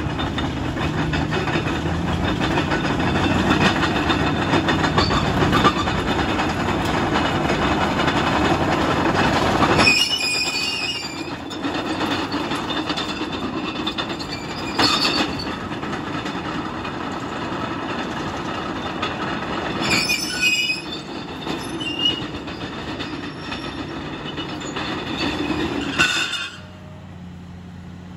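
Caterpillar D6M LGP crawler dozer driving and turning: its diesel engine running under load while the steel tracks clank, with several sharp high-pitched track squeals. Near the end the engine drops back to a quieter idle.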